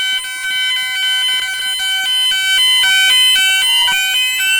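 Store fire alarm sounding between voice-evacuation announcements: a loud, rapidly pulsing electronic tone that, about halfway through, changes to repeated rising whoops.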